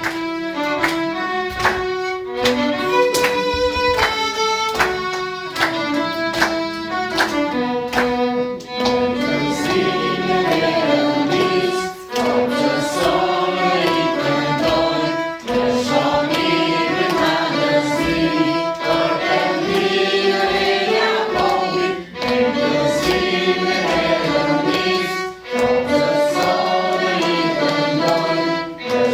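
A hymn played on bowed strings, with a choir singing. The notes are held and change step by step.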